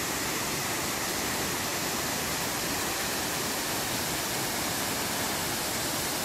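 A waterfall pouring down a rock face: a steady, unbroken rush of falling water.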